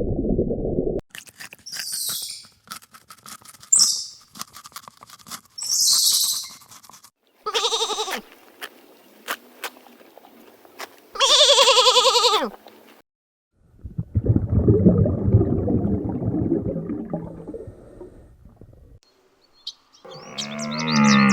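A string of short animal sound clips: high chirps, then two wavering bleats, then a low rough call lasting several seconds, and more calls near the end.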